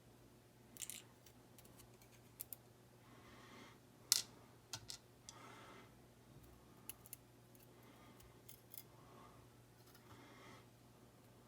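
Small metallic clicks and light handling noises of a pin-tumbler ERA rim cylinder being gutted by hand as its plug and pins are worked out, with one sharper click about four seconds in.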